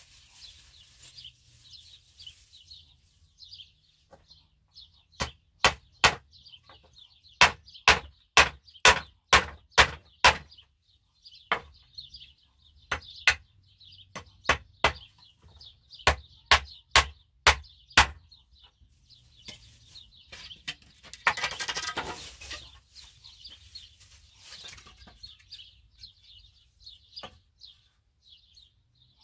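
Hammer blows on wooden boards: runs of sharp strikes, about two a second, with pauses between them. Small birds chirp throughout, and a brief rasping sound comes about three-quarters of the way through.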